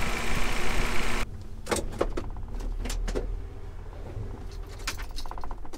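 Ford 4.9-litre (300 cu in) inline-six idling after a head-gasket repair, loud with the hood open, then dropping suddenly about a second in to a low hum. Several knocks and clunks of handling follow, with a brief fast ticking near the end.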